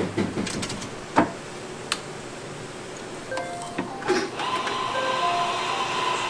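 Stainless-steel waffle iron being worked: sharp metal clicks and knocks in the first second as the lid is handled, then another cluster of clanks around four seconds in as the lid is lifted. A steady hiss sets in just after.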